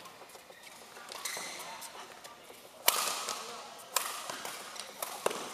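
Badminton rackets striking a shuttlecock in a doubles rally: a series of sharp smacks about a second apart, the loudest about three seconds in, each fading out in the hall.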